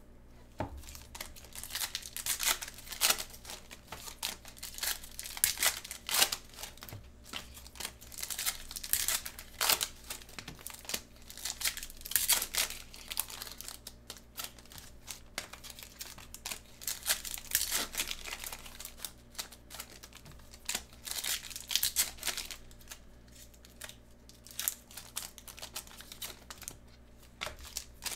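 Plastic wrapping of football trading-card boxes and packs crinkling and tearing by hand, in irregular bursts with louder rips every few seconds.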